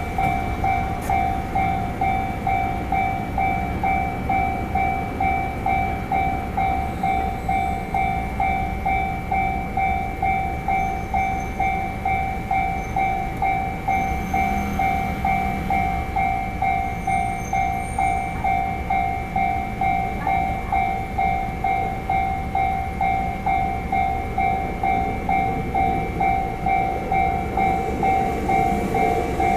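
Japanese railway level-crossing warning bell ringing on and on in rapid, evenly repeated dings, with the low rumble of trains running through the crossing underneath.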